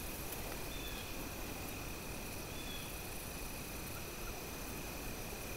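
Crickets trilling steadily in a quiet field, with three short faint chirps in the first few seconds.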